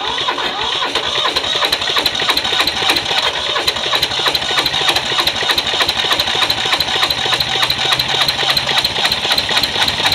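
Toyosha diesel engine of an old Hinomoto compact tractor cranking over on its starter at a fast, even beat, firing on some strokes without quite catching: it is close to starting after years of sitting seized.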